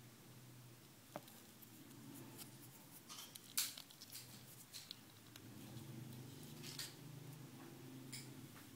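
Faint handling sounds of fingers working fishing line around a hook held on a small wooden knot-tying tool: scattered small clicks and rustles, the sharpest about three and a half seconds in, over a faint steady low hum.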